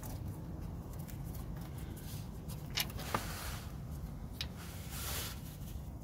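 Reverse light switch being unscrewed by hand from a Nissan Micra K12 gearbox casing: a few light clicks about halfway through and a short rustle near the end, over a steady low rumble.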